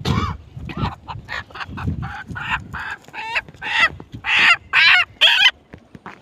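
A chicken squawking as it flees: a run of short, sharp clucks, then three loud squawks near the end.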